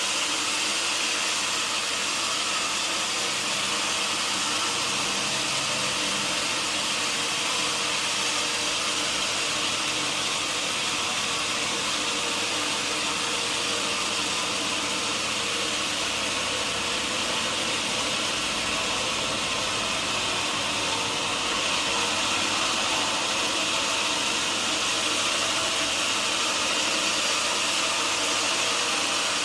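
Sawmill saw running steadily: an even, continuous hiss with a machine hum beneath, holding the same level throughout.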